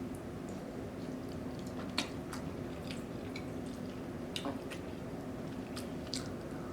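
Close-up wet eating sounds: sauced spaghetti squished in bare hands and chewed, with sharp wet smacks and clicks every second or so. A steady low hum runs underneath.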